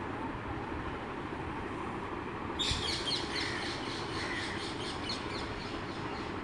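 Water poured from a steel bowl into a pressure cooker of soaked kidney beans, splashing in suddenly about two and a half seconds in and then tailing off, over a steady background hiss.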